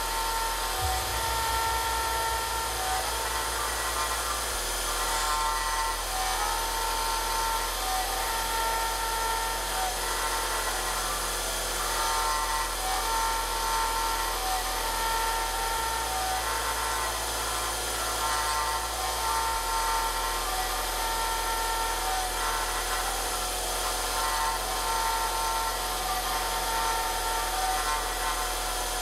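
An AlTiN-coated three-flute end mill on a home-built CNC vertical machining centre cutting titanium: a steady cutting whine made of several held tones over the running spindle.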